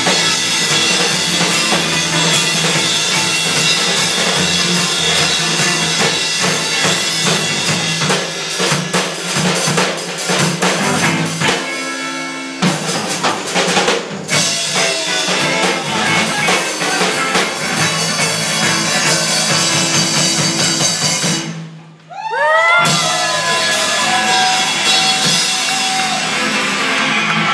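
Live rock band playing loudly, with a full drum kit and electric guitars, the drums heavy in the mix. Near the end the music drops away for a moment, then comes back with swooping, sliding notes.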